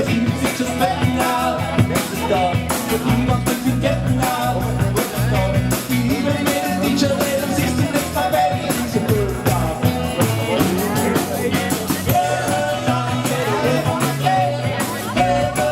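Rock and roll band music with a lead vocal singing over a steady beat.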